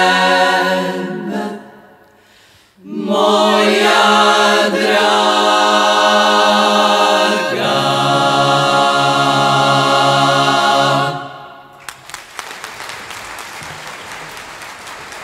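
Women's klapa choir singing a traditional Dalmatian song a cappella in close harmony. They break off briefly about two seconds in, then sing on to a long final chord, with the lowest voice stepping down partway through; it ends about eleven seconds in. Audience applause follows.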